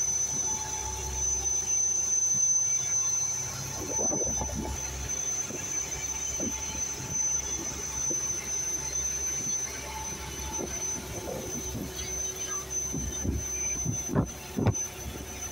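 Mechanised fishing boat's machinery giving a steady high-pitched whine over a low hum. Occasional light knocks and taps come through, several of them near the end.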